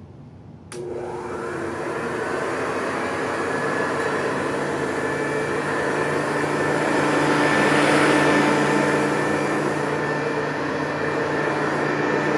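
1970s Hoover Custom Convertible U4007 upright vacuum cleaner switched on about a second in, its dirty-fan motor spinning up and then running steadily.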